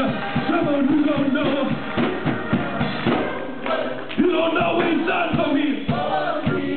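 Gospel music in a church service: voices singing together over instruments with a steady beat.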